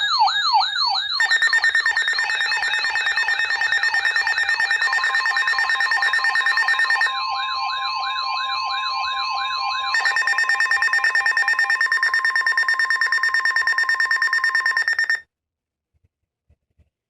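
Emergency alert tones layered into one loud electronic alarm. A fast up-and-down siren warble repeats about three times a second, over steady and beeping alert tones. The warble drops out for a few seconds in the middle and returns, and the whole alarm cuts off suddenly about fifteen seconds in.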